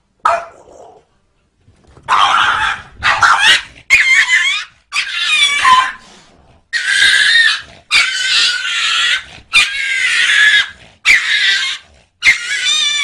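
A cat and a small dog fighting: a short cry at the very start, then from about two seconds in a run of about nine loud, drawn-out, wavering cries, each half a second to a second long.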